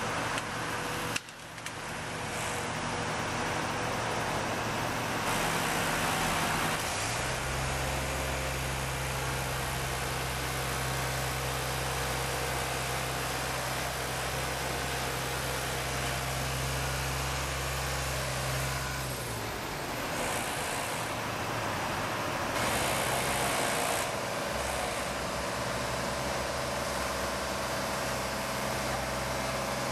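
A boom lift's engine running steadily. Its hum grows louder from about 7 s in and drops back about 19 s, then picks up again near the end.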